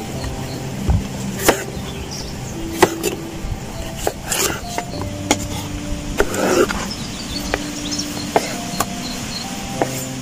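Kitchen knife chopping vegetables on a wooden cutting board: sharp, irregular knocks a second or two apart, over background music with held notes.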